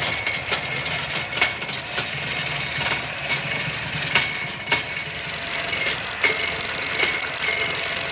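A machine running with a steady high whine, rattling and clicking irregularly; it gets louder about five and a half seconds in.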